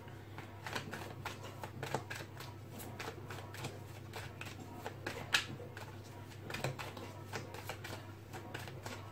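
A tarot deck being shuffled by hand: a run of soft, irregular card clicks and slaps, with one sharper slap about five seconds in, over a low steady hum.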